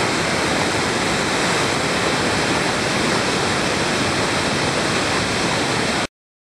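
Whitewater river rapids rushing steadily and loudly, an even churning of water with no let-up; the sound cuts off suddenly near the end into silence.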